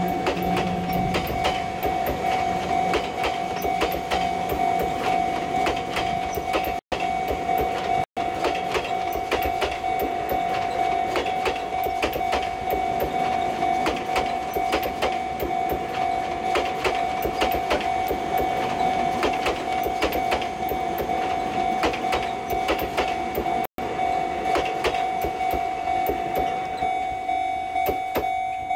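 Unpowered Tobu 10000 series commuter cars being hauled past, their wheels clicking steadily over rail joints, with a steady high whine throughout. The sound cuts out for an instant three times.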